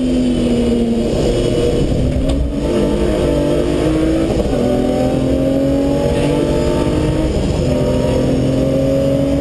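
BMW M3 Compact rally car's engine, heard from inside the cabin, accelerating hard through the gears. The pitch climbs, drops at an upshift about two and a half, four and a half and seven and a half seconds in, then climbs again.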